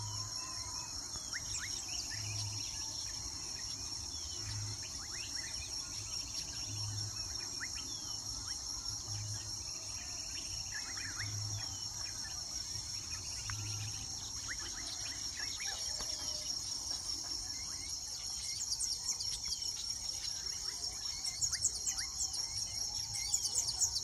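A steady high-pitched insect chorus, like crickets, with many short chirps from weaver birds at their nesting colony, which become busier near the end. A soft low pulse repeats about every two seconds through the first half.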